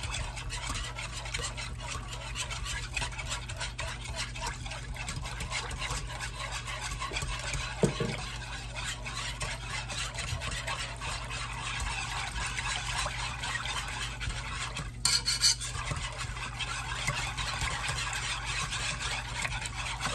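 Wire whisk stirring a thin milk-and-chicken-broth sauce base in a pot, a rapid steady swishing and scraping against the pot's sides and bottom, with a single sharper knock about eight seconds in. The sauce is being cooked and whisked until it thickens.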